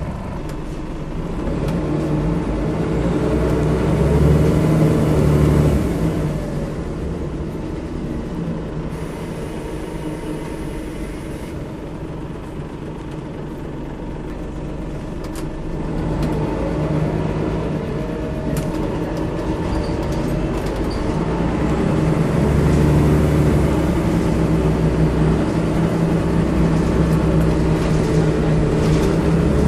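Volvo B10B bus's mid-mounted six-cylinder diesel engine heard from inside the saloon as the bus pulls away and accelerates. The engine rises in pitch for a few seconds and drops back about six seconds in. It runs more quietly for a while, then climbs again from about halfway through and holds at a higher pitch.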